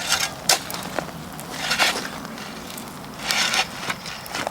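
Gravelly soil crunching and scraping as it is worked by hand around a plant, with a few sharp clicks in the first second and two longer scrapes.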